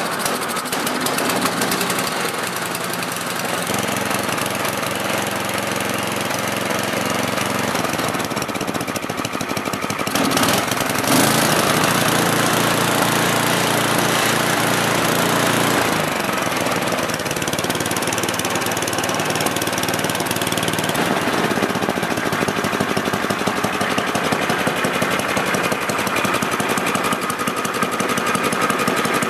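Single-cylinder Tecumseh snowblower engine, fitted with a new adjustable carburetor, running steadily just after starting. Its sound changes and gets a little louder about eleven seconds in.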